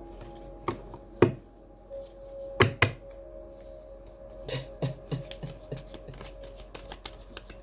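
Tarot cards being handled and knocked against a table: four sharp knocks in the first three seconds, then a quick run of soft taps at about four a second, over faint steady background music.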